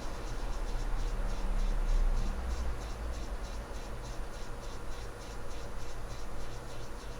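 Hot air rework station blowing on an iPhone logic board to desolder the CPU: a steady low rush of air with a faint steady hum, louder for the first couple of seconds, under a fast run of light ticks.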